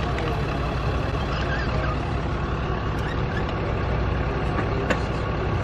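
Tow truck's engine idling, a steady low rumble, with a sharp click about three seconds in and another near the end.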